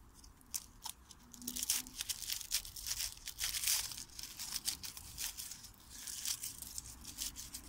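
Aluminium foil being unwrapped by hand from a branch, crinkling in quick, irregular crackles that start about a second in.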